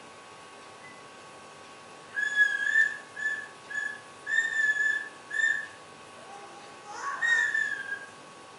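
A series of high whistled notes: five short notes of about the same pitch, then a rising glide into one longer note near the end.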